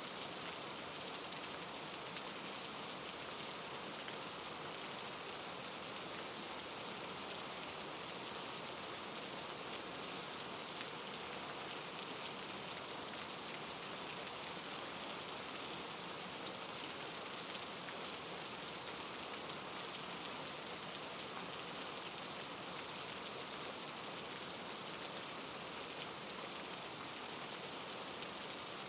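Steady soft rain falling on a surface, an even hiss with scattered drop ticks.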